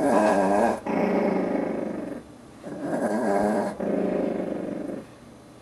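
Small dog growling in long, wavering grumbles, four in two close pairs with a short break between the pairs. Her growl says she is comfortable and does not want to be picked up.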